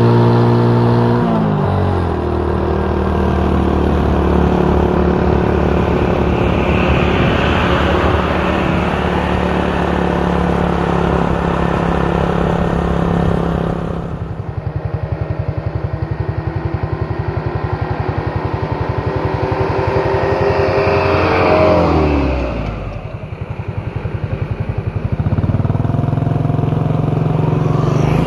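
Close motor vehicle engine running under way. Its pitch drops about two seconds in and then holds steady. Near the middle it eases to a slower, quieter putter, then rises and drops again with further shifts and settles back to a steady run near the end.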